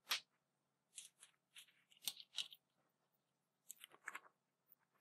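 A person taking a drink close to the microphone: a few faint short sips, swallows and mouth noises scattered through, the first just after the start the loudest.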